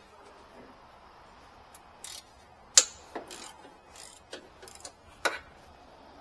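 Irregular clicks and clinks of hand tools and fasteners being worked, with the loudest sharp click a little under three seconds in.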